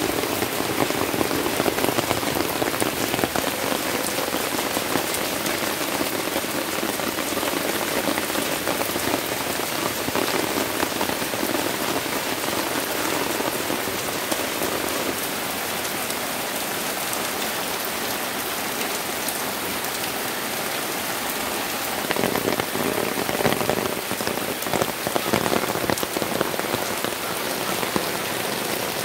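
Monsoon rain falling steadily on garden plants and the ground, a continuous hiss of drops. About two-thirds of the way through it grows a little louder and fuller.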